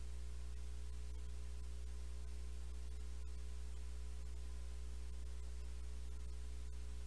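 A steady low electrical hum with a faint hiss, unchanging throughout.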